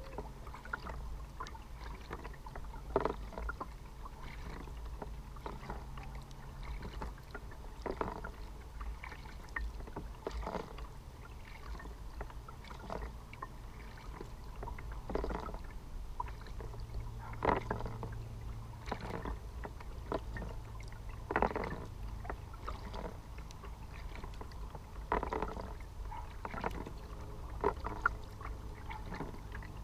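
Kayak paddling: the paddle blades dip and splash in the water every couple of seconds, at an uneven pace, over a steady low rumble.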